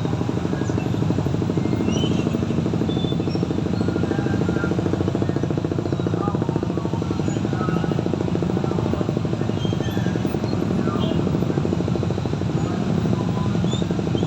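Steady, loud low mechanical rumble with a fast even pulse, like a running engine, with faint short high chirps scattered above it.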